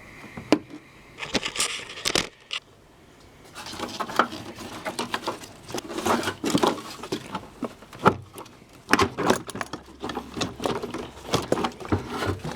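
Hand tools and plastic engine-bay parts being handled: irregular clicks, knocks, light rattles and rustling, busier from about three and a half seconds in.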